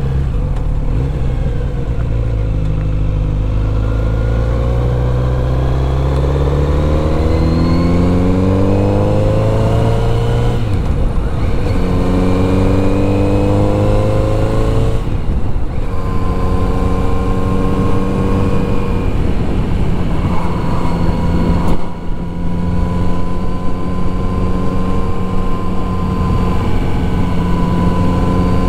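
Kawasaki Z900RS's inline-four engine heard from the rider's seat, pulling up through the gears. The revs climb, drop at a shift about ten seconds in and again around fifteen seconds, then hold steady at a cruise, with a brief dip about twenty-two seconds in.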